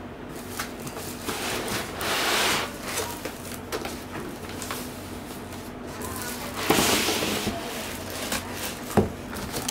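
Cardboard box and packing being handled as a foam-packed monitor is slid out of it: two longer stretches of cardboard and plastic scraping and rustling, with a few scattered knocks, the sharpest near the end.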